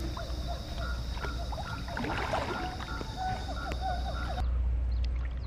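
Water swishing and splashing around a person wading in a muddy stream, with a louder splash about two seconds in. Birds call in short repeated notes in the background.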